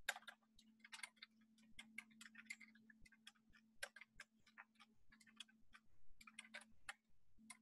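Faint keystrokes on a computer keyboard as text is typed: many irregular clicks, a few a second, over a low steady hum.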